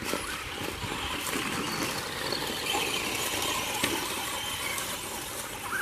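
Electric RC cars running on a dirt track: motors whining and tyres scrabbling over dirt and dead leaves, with a sharp click about four seconds in.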